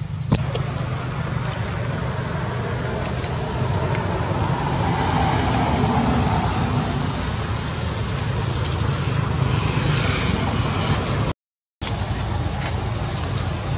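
Steady low rumbling background noise that cuts out for a moment near the end.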